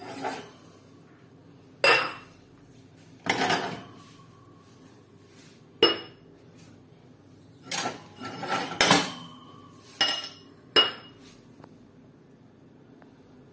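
Glass tumblers clinking against each other and against a metal wire dish rack as they are lifted off it one by one: about eight or nine sharp clinks at uneven intervals, some ringing briefly.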